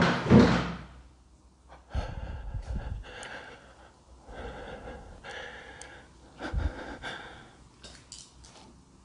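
An interior door being handled, creaking in several short stretches, with dull thumps about two seconds in and again past the middle. A louder noise fades out within the first second.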